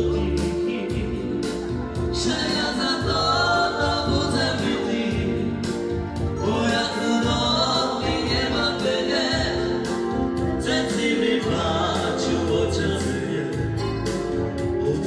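Live band dance music with keyboard and a singer: long sung phrases over a steady, repeating bass line.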